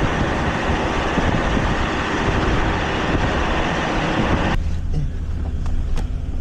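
Loud wind and road noise from a moving vehicle, which cuts off suddenly about four and a half seconds in, leaving a low steady hum with a few faint clicks.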